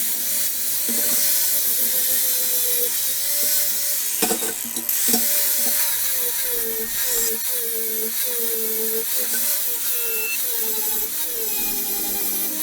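Handheld power tool running with a high whine over a hiss, its motor pitch sagging and recovering again and again as it is pressed into the work, more often in the second half.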